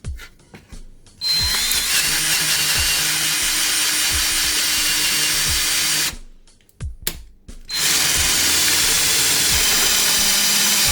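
TOTAL P20S 20 V cordless drill driving a hole saw through a thin iron sheet, with a high metallic squeal over the drill's running. After a few clicks it cuts for about five seconds, stops briefly, then starts cutting again.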